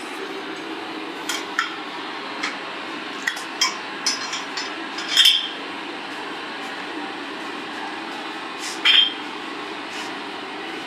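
Scattered metal clinks and taps of tools and metal fittings knocking against a steel tyre-spreader stand holding a bus tyre. The loudest comes about five seconds in and another near the end, over a steady background hum.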